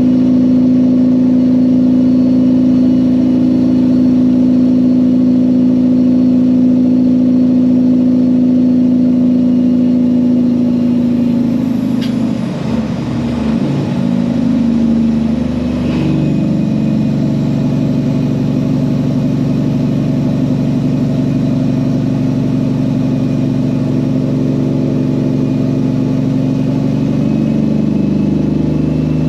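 Peterbilt truck's diesel engine running under way with a steady note. About twelve seconds in the note breaks and drops, as in a gear shift, then settles at a new pitch. A short click comes a few seconds later, and the pitch climbs again near the end.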